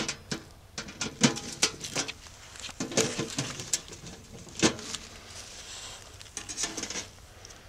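Sharp light metal clicks and knocks, irregular and at times several a second, as parts of a small titanium backpacking wood stove are handled and fitted together.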